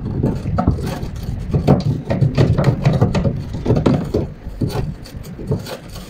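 Irregular clicks and scrapes of a hand tool poking and working inside a washing machine's plastic drain pump fitting, over a steady low rumble.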